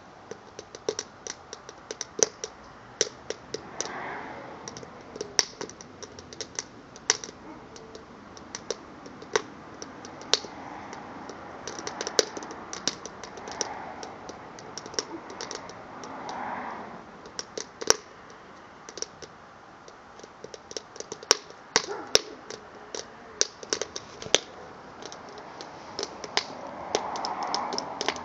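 Burning cedar log crackling, with irregular sharp pops and snaps, several a second, over a low steady hiss of the fire.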